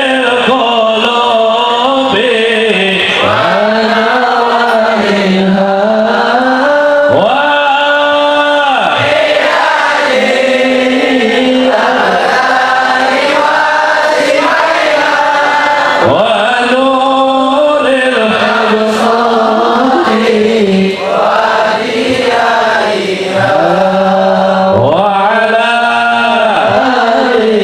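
A man's voice chanting a devotional praise song into a microphone over a PA, in long held notes that slide and bend up and down.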